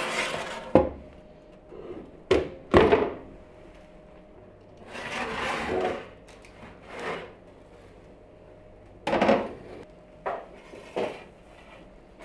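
A run of knocks and scrapes from a metal baking tray being slid along a gas oven's racks and handled. The two loudest knocks come about three seconds in and just past the middle, with a longer scrape between them.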